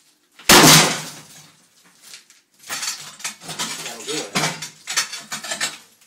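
A sledgehammer blow on a cast-iron bathtub about half a second in: one loud clang that rings briefly. About two seconds later comes some three seconds of irregular clattering and clinking of broken pieces and shattered porcelain enamel.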